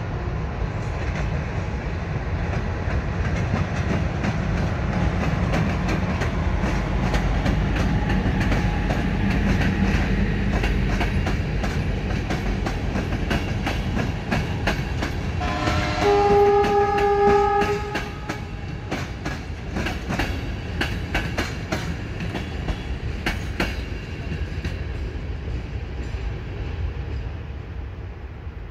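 A train running past with a steady rumble and wheels clacking over rail joints. A little past the middle a horn sounds, a brief lower note then a higher one held for about two seconds, the loudest moment. The rumble thins toward the end.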